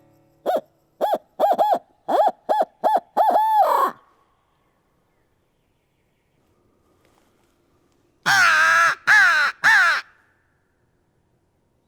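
Hooting in a barred owl's pattern: about nine quick hoots, the last drawn out and falling. About four seconds later come three loud, harsh crow caws.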